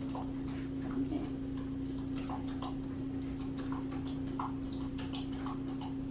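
Light, irregular clicks and taps of a paintbrush working paint onto a small wooden derby car, over a steady low hum.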